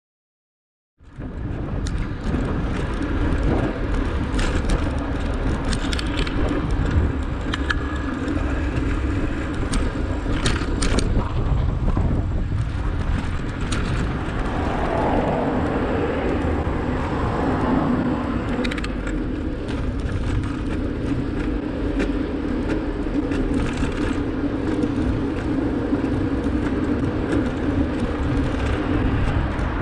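Ride audio from a bicycle-mounted camera: wind rumbling on the microphone over steady tyre and traffic noise from the road, with scattered clicks and rattles. It cuts in suddenly about a second in.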